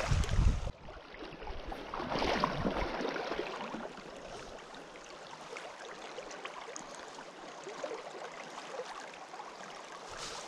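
Creek water running steadily over riffles. At the very start a small splash with a low thump as a little trout is dropped back into the current, and a brief louder rush about two seconds in.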